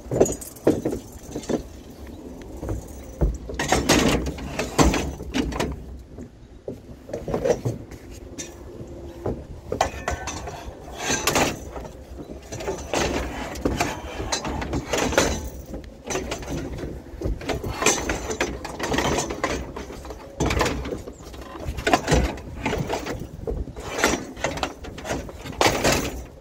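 Scrap metal being handled and wrestled into place: repeated clanks and knocks with scraping and squeaking of metal on metal.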